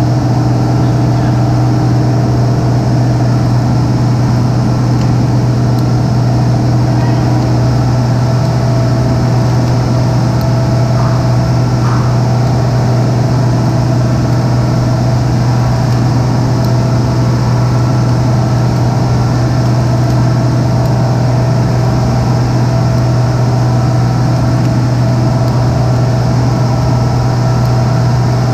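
Steady, loud drone of engine-room machinery in an ammonia refrigeration plant, dominated by a strong low hum that holds unchanged throughout.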